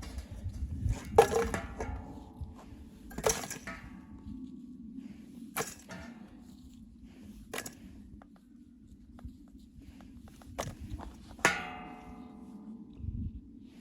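A series of separate knocks and clanks, about six in all, a couple of them ringing briefly like struck metal. The loudest comes a little over a second in, and another near the end. A steady low hum runs underneath.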